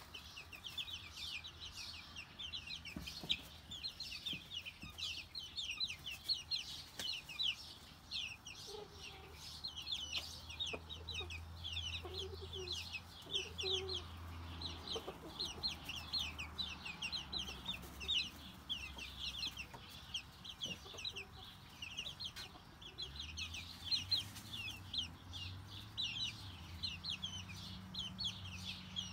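A brood of baby chicks peeping without pause: many short, high, falling peeps overlapping, several a second.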